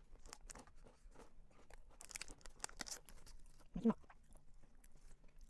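Plastic wrapper of an individually wrapped cookie crinkling and tearing open, a quick run of crisp crackles. About four seconds in comes a short vocal sound, the loudest moment.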